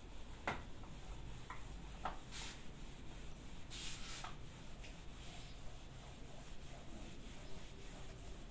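Duster rubbed back and forth across a whiteboard, wiping off marker writing: irregular rubbing strokes, with a few short, sharper strokes in the first half.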